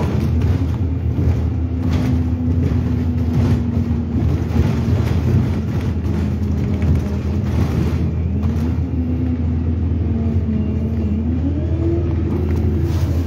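Bus engine and drivetrain heard from inside the moving bus: a steady low rumble with a whine that climbs in pitch twice, around the middle and near the end, as the bus accelerates.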